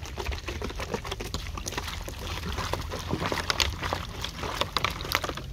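Liquid sloshing inside two plastic bottles of rice-wash water shaken hard by hand, with many small clicks and knocks throughout. The sugar that settled at the bottom is being dissolved into the rice water.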